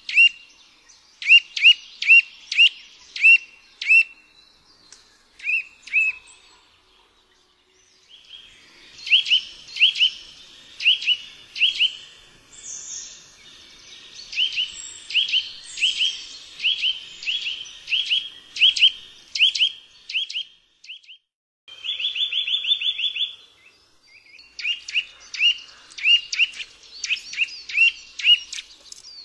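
Eurasian nuthatch calling: series of short, clear whistled notes that each sweep upward, repeated about two to three a second. About two thirds of the way through comes a fast trill of the same notes.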